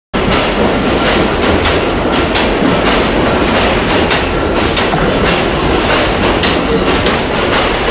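New York City subway train running on the track close by: a loud, steady noise of wheels on rail, with frequent clicks as the wheels pass over rail joints.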